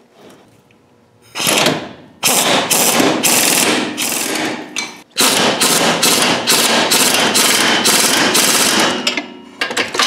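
Loud, rapid hammering in two long runs of about three strokes a second, with a short break about five seconds in.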